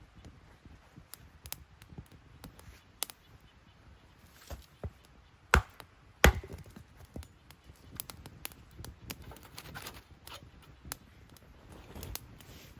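Freshly lit wood fire crackling in a small firebox stove, with irregular light pops and two loud sharp cracks about halfway through.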